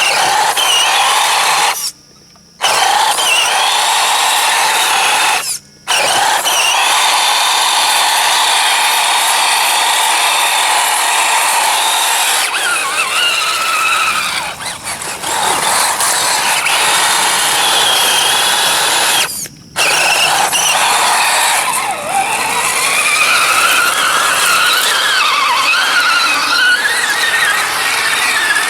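Electric motor and geared drivetrain of an Axial SCX10 1/10-scale RC truck whining, the pitch rising and falling with the throttle as it drives through mud. The sound cuts out sharply three times, briefly each time.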